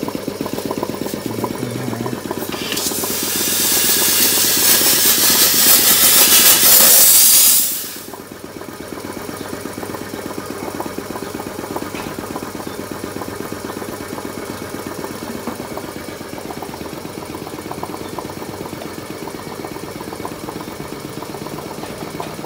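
A piston air compressor running with a fast, even pulse. From about three seconds in, a loud hiss of compressed air blasting sand from a homemade Coke-bottle sandblaster onto a metal fork tube, cutting off sharply about eight seconds in.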